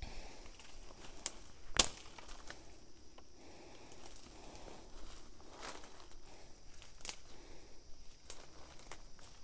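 Dry vegetation rustling and crackling, with scattered small clicks and one sharper snap just under two seconds in.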